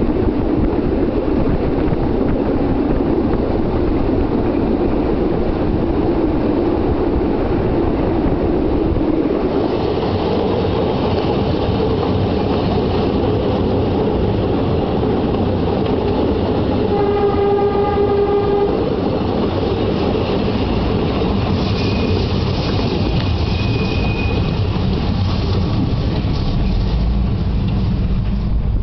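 Narrow-gauge train running through a cutting: a steady rumble of wheels on the rails mixed with wind. A little past halfway the locomotive sounds one held note for about two seconds, and later a faint thin high squeal comes and goes.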